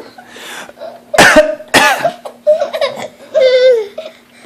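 A man gives two short coughs about half a second apart, done on purpose to amuse a toddler. About a second and a half later the toddler laughs in reply.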